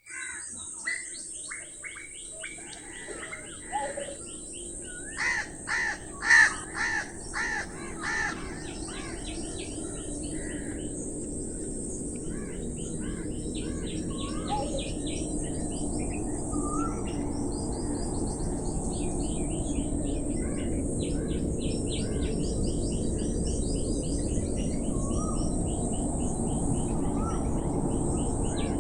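Small birds chirping steadily in a morning chorus, with a run of about six loud cawing calls about five to eight seconds in. Beneath them is a steady low background noise that grows slightly louder.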